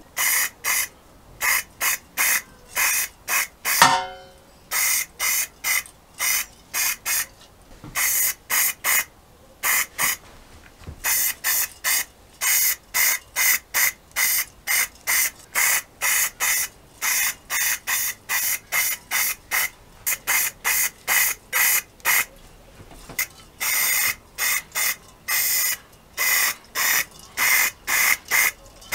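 Aerosol spray can of grey primer spraying in dozens of short hissing bursts, each under half a second, with short pauses between them. About four seconds in there is a brief falling squeal.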